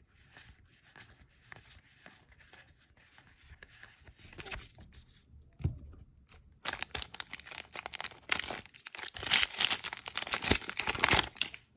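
Magic: The Gathering booster pack's plastic-foil wrapper being torn open and crinkled, a loud crackling rustle over the last five seconds. Before it comes faint rustling and clicking of cards being handled.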